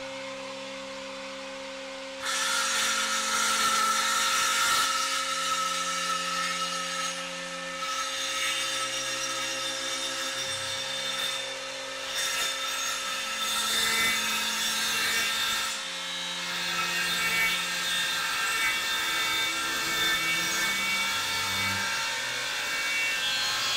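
A vacuum cleaner used for dust extraction hums steadily. About two seconds in, a Makita cordless circular saw starts cutting through a white board, and the cutting noise carries on, swelling and easing as the blade moves along the cut.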